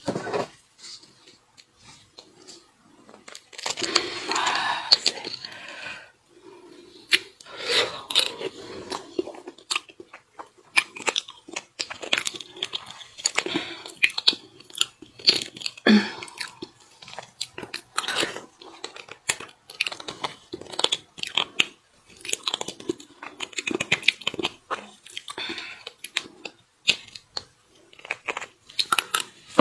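Close-miked eating of beef bone marrow: chewing and biting with many short, sharp, wet clicks and smacks at an irregular pace.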